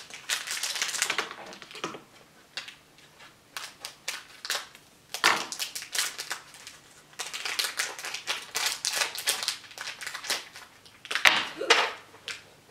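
Foil blind-bag wrapper being torn open and crinkled by hand, in several bursts of crackling with short quiet gaps between them.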